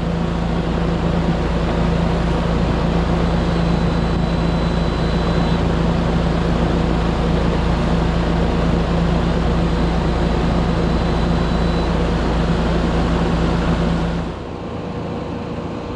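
Newly installed Trane air-conditioning condenser running in cooling: a steady rush from the outdoor fan over a constant compressor hum. About fourteen seconds in it drops abruptly to a quieter background.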